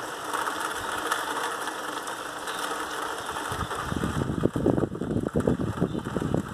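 Heavy downpour: a steady hiss of rain, then from about three and a half seconds in a louder, dense, irregular clatter of drops striking the window ledge close to the microphone.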